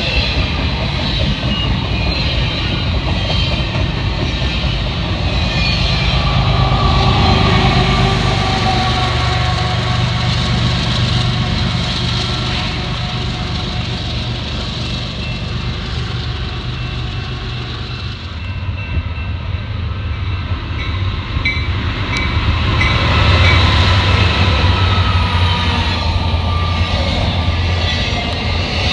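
Canadian National double-stack intermodal freight train passing close by: steel wheels running on the rails and the container cars rumbling, swelling louder twice.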